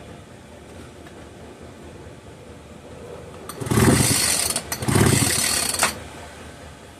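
Two quick pulls on a Poulan Farmhand 2900 chainsaw's recoil starter cord, each about a second long, cranking the engine over without it starting. This spreads the lubricant just sprayed down the cylinder.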